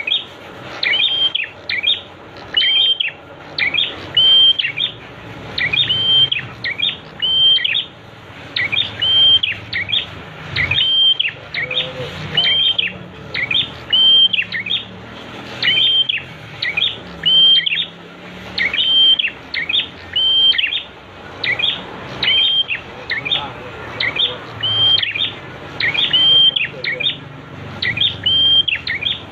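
A prinia (prenjak) calling over and over: sharp, high hooked notes in quick clusters of two or three, about one cluster a second.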